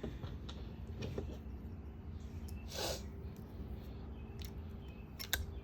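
Quiet small-room hum with a few faint ticks and clicks from a 2.0 mm hex screwdriver turning small screws into an RC truck's gear cover, and one short sniff or exhale about three seconds in.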